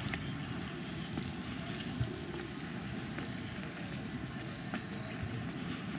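Steady low outdoor rumble, like wind on the microphone or distant traffic, with a few faint clicks of footsteps on stone.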